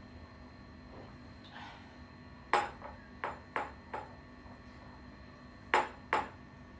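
A series of sharp clinks of glassware with a brief ring: five in quick succession over about a second and a half, then two more near the end.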